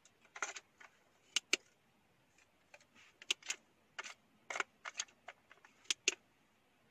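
Hard plastic parts of a small cup-shaped USB air purifier being handled and fitted together: a string of irregular clicks, taps and short scrapes.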